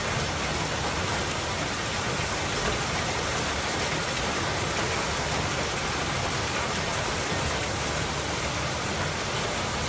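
Torrential storm rain falling hard and steadily, an even, dense hiss with no breaks.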